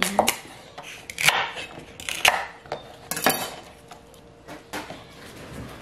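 Chef's knife cutting through the base of a celery bunch on a wooden cutting board, with several sharp knocks about a second apart as the blade and stalks hit the board.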